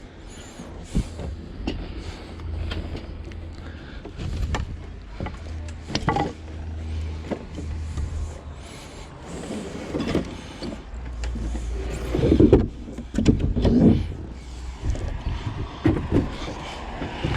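Knocks, clunks and rattles of junk being handled and shifted in a curbside pile, louder and busier about two-thirds of the way through, over a steady low rumble.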